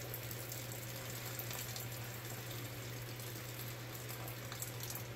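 Broth trickling and dripping back into a stainless stockpot from a spider strainer heaped with cooked chicken and vegetables, a soft wet sound with scattered small splashes.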